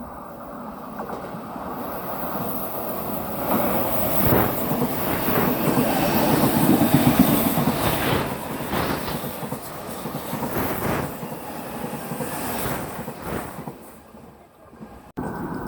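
Odakyu Line electric train passing: its running noise swells over several seconds, peaks about halfway through and fades, with wind buffeting the microphone. The sound cuts off abruptly near the end.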